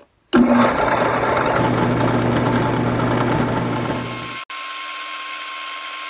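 Benchtop drill press with an end mill in the chuck, running as a makeshift milling machine: a loud, steady motor hum and rush that comes in abruptly. A little past four seconds it drops suddenly to a quieter, thinner running hum.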